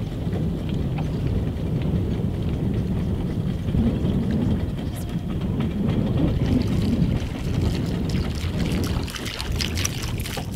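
Steady low rumble of a small boat on open water, with wind buffeting the microphone. Near the end, sharper splashing and clicking sounds come in over it.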